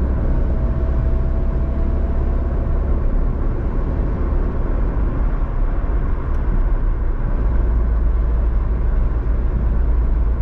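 Car driving along a road: a steady, deep rumble of road and engine noise.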